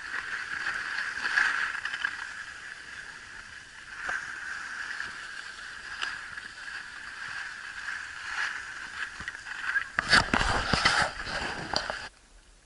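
Skis sliding and scraping over packed snow, a steady hiss. About ten seconds in, wind buffets the microphone for about two seconds, the loudest part, before the sound cuts off suddenly.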